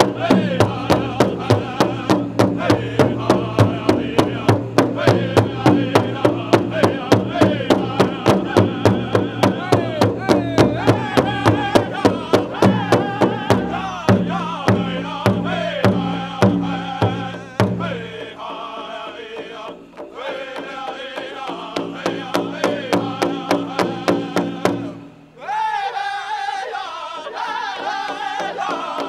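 Powwow drum group singing a prairie chicken dance song: male voices in unison over a steady beat on the big drum. After about 18 seconds the drum beat turns softer under the singing, and the sound briefly drops away near 25 seconds before singing and beat carry on.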